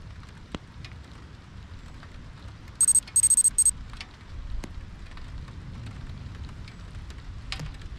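Steady rain with a low wind rumble on the microphone and scattered drop ticks. About three seconds in, a loud, high electronic beeping sound effect plays in a few short pulses, lasting under a second.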